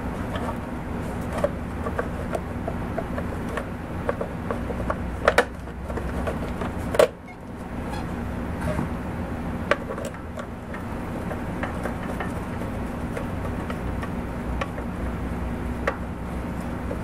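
Hard plastic electrical box cover being handled, pressed into place and screwed down on a go-kart frame: scattered clicks and knocks, the loudest about five and seven seconds in, over a steady low mechanical hum.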